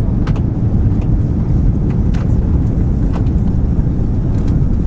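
Steady low rumble of cabin noise inside an Airbus A340 on its landing approach, from the engines and the airflow around the fuselage, with a few faint clicks.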